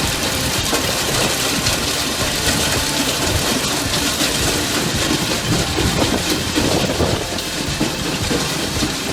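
Heavy farm machinery running: steady engine noise mixed with dense, irregular rattling.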